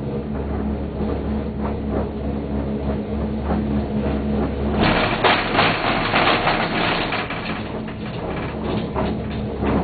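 1987 Leitner six-seat gondola cabin riding the cable, heard from inside the cabin: a steady low hum, then about five seconds in a dense metallic rattling clatter as the cabin runs over rollers, fading to a lighter clatter near the end.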